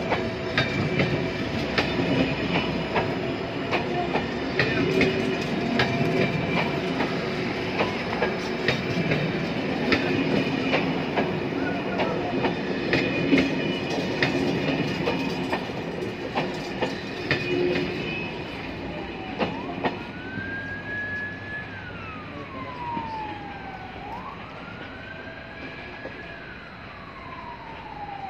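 Passenger train coaches rolling past at low speed, wheels clicking over rail joints with some squeal, fading as the train goes away. About two-thirds of the way in, a wailing siren starts up in the distance, slowly rising and falling in pitch.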